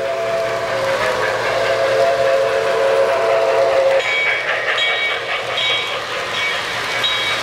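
An O-gauge model steam locomotive's sound system blows a long multi-note steam whistle that cuts off about four seconds in, over the rumble and click of model train wheels rolling on the track as passenger cars pass close by. After the whistle stops, short high-pitched ringing tones come and go.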